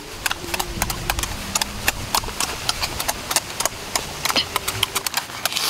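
Wet mouth sounds of eating duck eggs: fast, irregular lip-smacking and chewing clicks, several a second.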